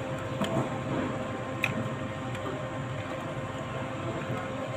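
Steady background hum of a large hall with a faint constant tone, and a few light clicks, about half a second and a second and a half in.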